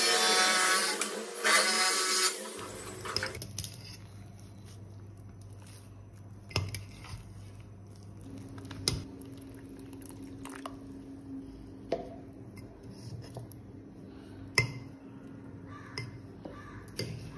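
A metal spoon stirring thick fermented idli batter in a stainless steel vessel, giving sharp clinks and knocks against the side every second or two over a low steady hum. A louder buzzing sound fills the first two and a half seconds and cuts off suddenly.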